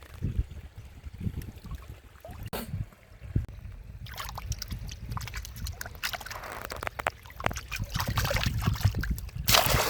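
Water sloshing and trickling with low thumps, turning to busier splashing about four seconds in and louder splashing near the end.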